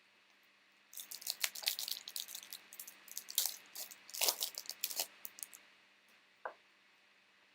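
Foil wrapper of a trading card pack crinkling and tearing as it is opened: a dense crackle lasting about four seconds, then a single tap.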